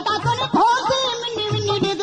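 Background music: an instrumental passage of a Punjabi song, with a beat and a gliding melody line.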